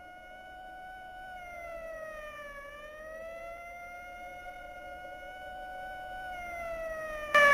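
A siren wailing, its pitch sinking slowly and rising again twice as it grows gradually louder; a sudden loud burst of noise cuts in at the very end.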